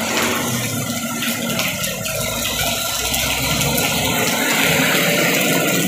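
Steady hiss of heavy rain, with a Hino dump truck's diesel engine running as it drives past on the wet road.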